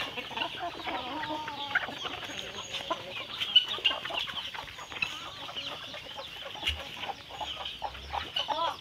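A flock of free-ranging chickens clucking and calling, many short overlapping calls.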